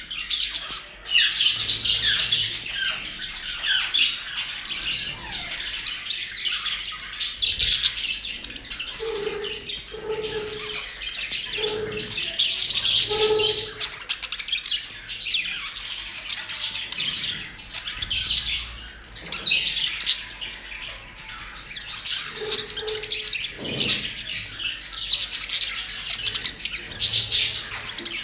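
Pet parrots and budgerigars chirping, chattering and squawking without a break. A few short, lower-pitched calls stand out: four in a row around the middle and another later on.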